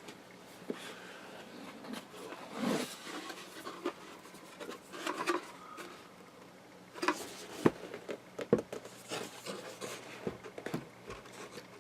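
Cardboard graphics card box being handled and opened by hand: scattered rubbing, scraping and small knocks, with a few sharp clicks around the middle.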